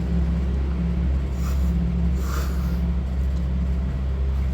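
A steady low rumble and hum, with a couple of faint, brief hissy sounds about one and a half and two and a half seconds in.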